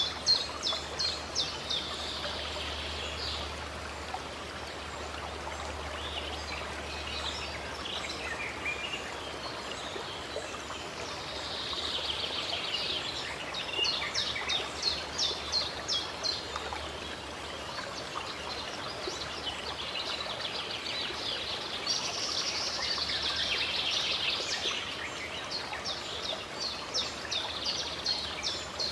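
Water running steadily, with birds singing over it: bursts of rapid repeated chirps alternating with falling trilled phrases, returning every several seconds.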